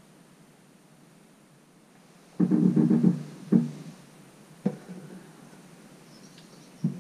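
Wooden walking sticks knocking and rattling against each other in a stick rack as they are moved: a short burst of clatter about two and a half seconds in, then single knocks, twice more in the middle and a double knock near the end.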